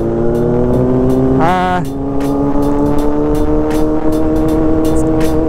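Motorcycle engine running steadily, its pitch slowly rising, with a brief voice about a second and a half in.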